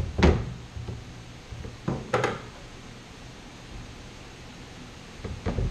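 Knocks and clicks of body-filler work: a knock just after the start, a quick pair of clicks about two seconds in, and a cluster of taps near the end as filler is scooped from its can onto a mixing board, over a low steady hum.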